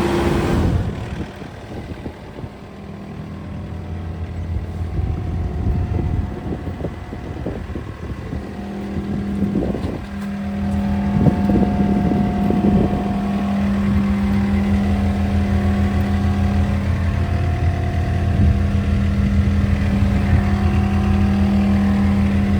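2018 John Deere 318G skid steer loader's 61 hp diesel engine running, rising in speed and then holding a steady high-throttle drone from about halfway on. A few sharp knocks come just before and around the point where it settles.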